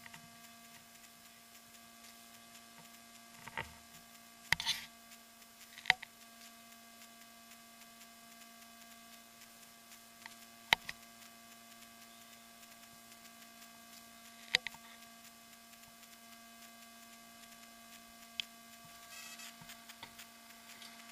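Steady electrical hum made of several held tones, with a handful of sharp clicks scattered through it and a brief rustle near the end.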